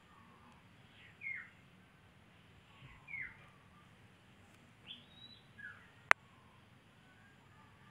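Young kitten mewing: a few short, high-pitched mews, each falling in pitch, spaced a second or two apart. A single sharp click about six seconds in is the loudest sound.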